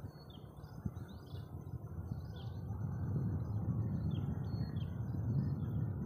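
Small birds chirping in short, high, scattered notes over a low, gusting rumble of wind on the microphone that grows louder about halfway through.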